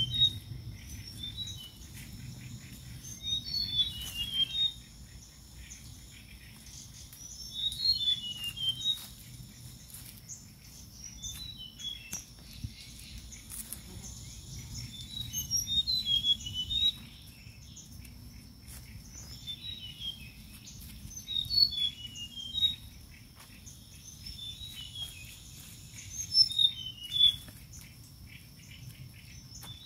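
A bird singing a short phrase of quick falling chirps, repeated every few seconds over a steady high insect drone. Light rustling of dry leaves and grass underneath.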